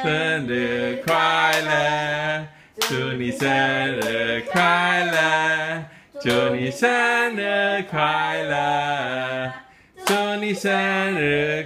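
A few voices singing another birthday song together without accompaniment, in long held notes, with hand claps keeping time.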